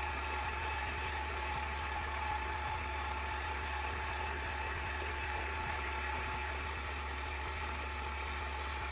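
KitchenAid stand mixer motor running steadily, driving a spaghetti cutter attachment: an even motor hum with a steady high whine.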